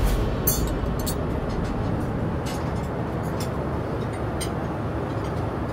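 Steady low roar of an airliner's cabin noise in flight, heard inside a Boeing 787 cabin, with a few light clicks.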